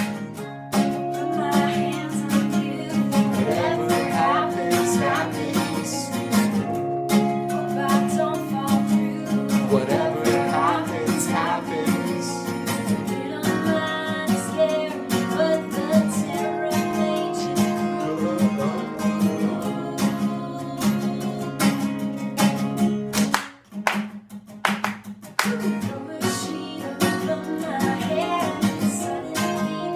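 Two acoustic guitars strumming chords while a woman sings the song. About two-thirds of the way through, the guitars briefly drop out to a few sharp, separate strokes, then the strumming picks back up.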